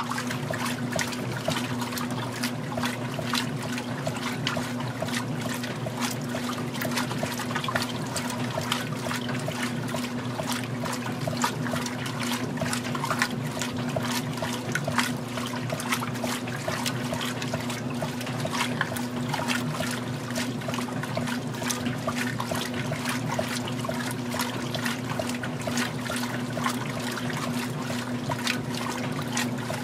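Magic Chef 20-pound top-load washing machine agitating during its rinse: water sloshing and splashing around the agitator over a steady motor hum.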